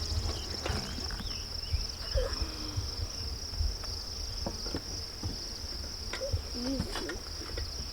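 Insects trilling in a steady, high, finely pulsing buzz, over a low rumble with scattered soft knocks and thumps.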